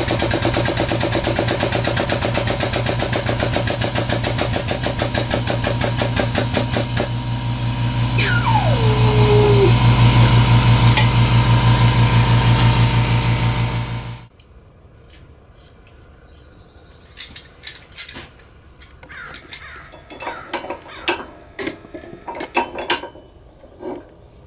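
Electric hydraulic pump of a Bonny Doon press running with a fast, even pulsing hum while the ram presses the copper bracelet. The sound changes about halfway through, with a brief falling whine, and then cuts off suddenly. Light clicks and taps follow as the press and workpiece are handled.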